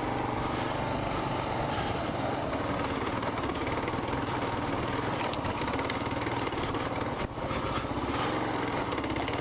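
Kawasaki KLR650's single-cylinder four-stroke engine running steadily under load as the bike climbs a rocky dirt hill, with a brief dip in level about seven seconds in.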